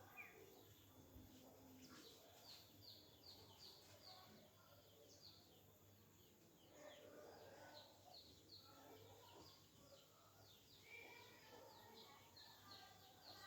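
Faint birdsong: a bird repeats short, high, falling chirps about two or three times a second, with other birds calling lower now and then over a steady low background hum.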